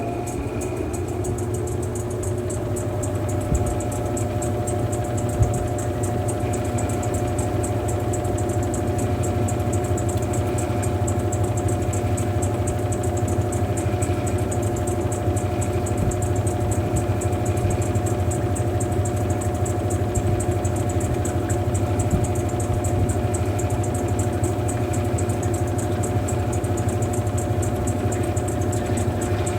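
Mueller Popmatic 8 kg washing machine running mid-cycle: a steady motor hum with a few constant tones, rising a little in level over the first several seconds.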